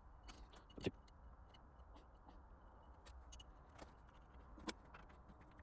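Near silence with a scatter of faint metallic clicks and ticks from hands working on a Myford Super 7 lathe's cross-slide, the two clearest about a second in and late on.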